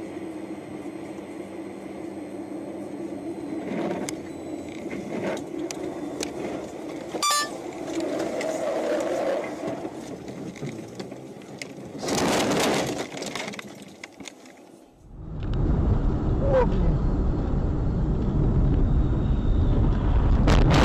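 Vehicle driving noise: a steady engine and road hum with a few knocks and a loud noisy burst lasting about a second, roughly twelve seconds in. Then an abrupt cut to a louder, low rumbling road noise with a short burst near the end.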